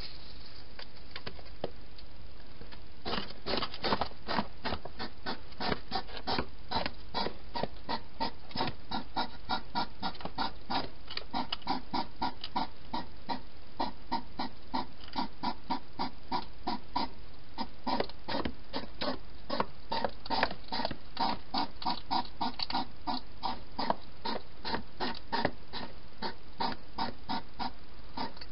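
Wild European hedgehog eating from a bowl inside a plastic feeding box, with a steady run of wet smacking chomps, about three to four a second, starting about three seconds in.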